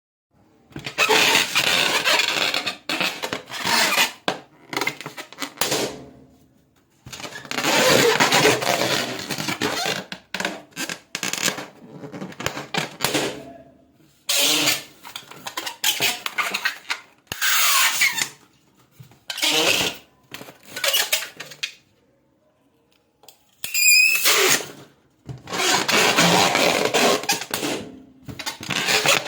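Rubber balloons being blown up and handled: several bursts of rushing air, each a few seconds long with short gaps between, with rubbing and scattered clicks, and a brief wavering rubber squeak near the end.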